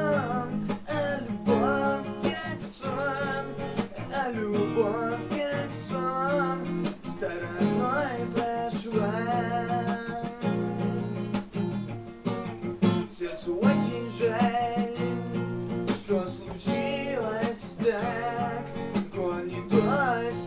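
Instrumental break of a Russian pop ballad: strummed acoustic guitar and backing with a melodic lead line, no vocals.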